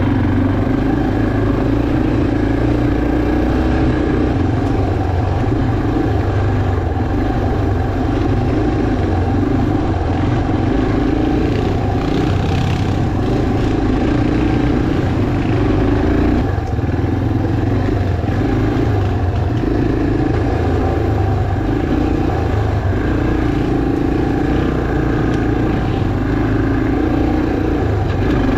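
Yamaha TT-R230 dirt bike's single-cylinder four-stroke engine running under way, its note swelling and easing every second or two as the throttle changes on a rough, rocky dirt trail.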